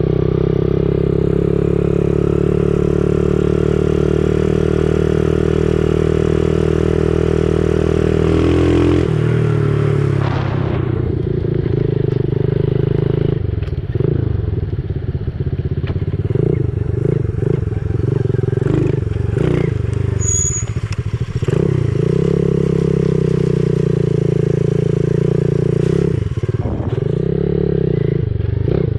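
Dirt bike engine running at steady revs, then dropping off about a third of the way in and rising and falling with the throttle. Clattering knocks run through the later part.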